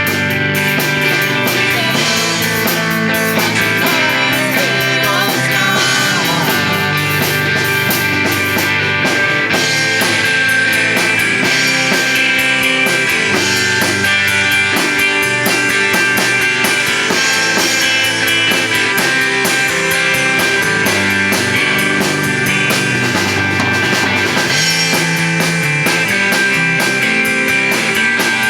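Live rock band playing a song: electric guitar and drum kit, running steadily without a break.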